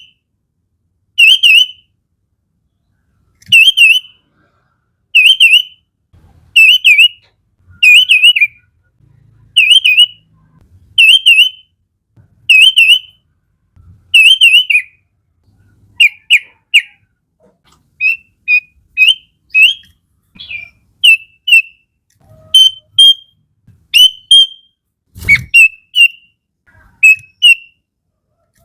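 Sooty-headed bulbul (kutilang) song: short, wavering whistled phrases repeated about every second and a half, changing about halfway through to quicker, shorter notes. A single sharp knock comes near the end.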